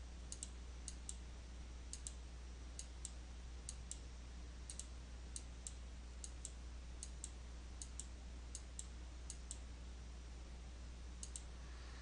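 Computer mouse button clicked about a dozen times, roughly once a second, each click a quick double tick (press and release), over a low steady hum.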